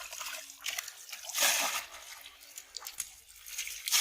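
Water splashing and sloshing in a shallow pond, with two louder splashes: one about one and a half seconds in and one near the end.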